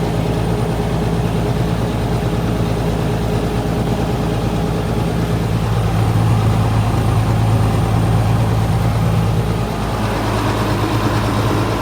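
John Deere 6030 tractor's diesel engine running steadily under way with a grain cart, a low hum that grows a little stronger about six seconds in.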